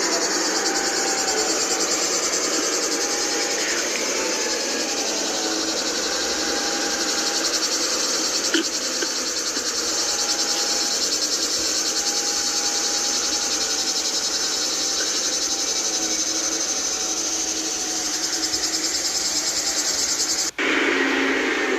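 Dense, steady chorus of insects such as cicadas or crickets, a fine high buzzing. A softer wavering hum comes and goes beneath it, and the sound cuts out for an instant near the end.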